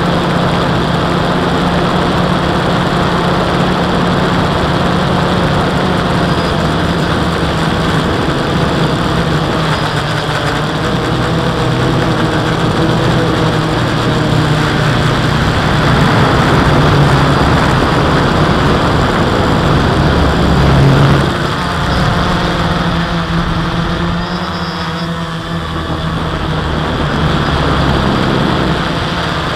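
Electric motors and propellers of a hobby quadcopter, heard from its onboard camera: a steady, loud hum under a rush of propeller wash, with the pitch shifting as the motors change speed about two-thirds of the way in.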